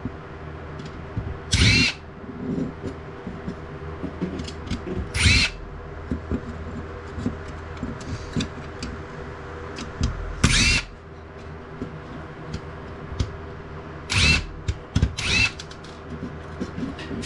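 Power drill-driver running in five short bursts, each with a quick rising motor whine, backing screws out of a printer's laser scanner unit. Light clicks of parts and screws come between the bursts.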